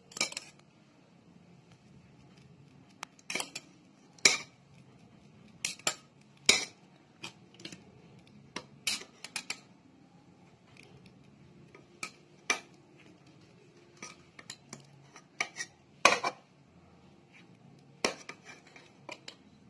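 Metal spoon clinking and scraping against a steel bowl while scooping damp rice flour and grated coconut, in irregular sharp clicks every second or two.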